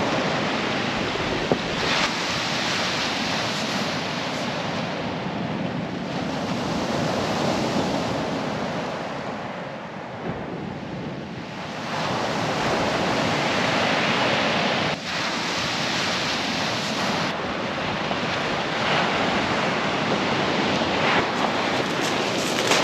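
Surf breaking and washing up a shingle beach, the rush of the waves swelling and easing, with wind buffeting the microphone.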